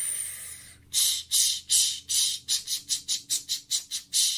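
A long breathy hiss, then a person's breath making a train's 'ch-ch-ch' chugging, short puffs that start slow and speed up to about six or seven a second.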